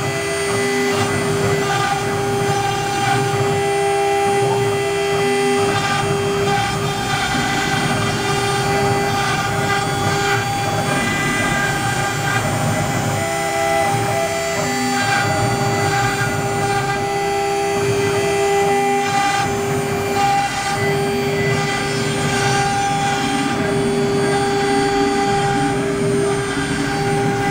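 CNC router spindle running with a steady high whine while engraving a wooden board, over the hum and noise of the machine's drives. The whine dips briefly now and then.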